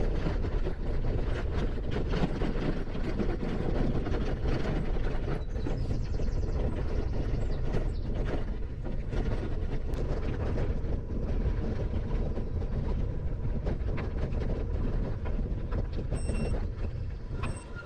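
Riding noise from a bicycle on the move: wind rumbling on the microphone, with the bike rattling and clicking over an uneven path.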